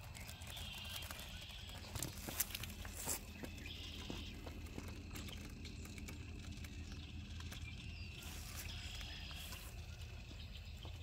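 Radio-controlled Traxxas TRX4 K10 crawler truck climbing over rocks, with a few sharp knocks and clatter about two to three seconds in.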